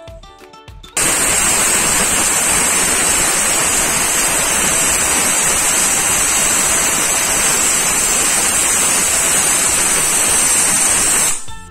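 Pressure cooker whistle: steam jets out past the lifted vent weight in a loud, steady hiss, cutting in suddenly about a second in and stopping abruptly near the end, a sign that the cooker has come up to full pressure. Background music before the hiss starts.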